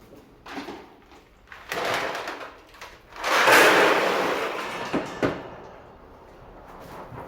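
Ginkgo nuts rattling and pouring during sorting, in a few bursts. The loudest pour lasts about a second past the middle and is followed by two sharp knocks.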